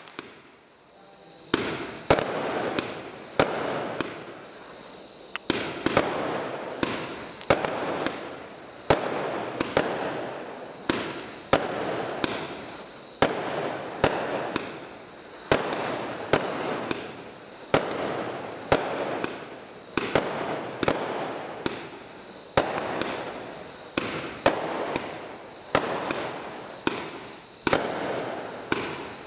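Bright Star Fireworks Battleship compound barrage cake firing shot after shot: sharp reports about once a second, with a crackling hiss between them. There is a brief lull about a second in.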